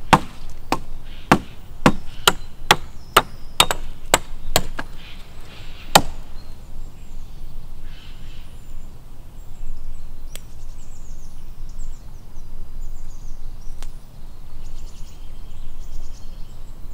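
Wood being chopped with a blade: about eleven sharp chops, roughly two a second, over the first six seconds, then only an occasional light knock.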